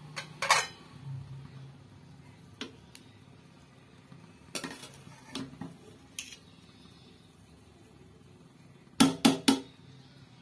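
Metal spoon knocking and scraping against an aluminium pot while fluffing cooked rice, in scattered clinks, with three quick loud clinks close together near the end. A low steady hum runs underneath.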